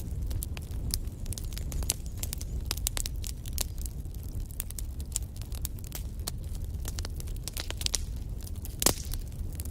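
Wood fire burning in a fireplace: burning logs crackling with frequent sharp pops over a low rumble of flames, and one louder pop near the end.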